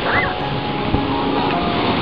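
Sea surf breaking and washing around waders, a loud steady rush of foaming water, with a child's short high cry just after the start.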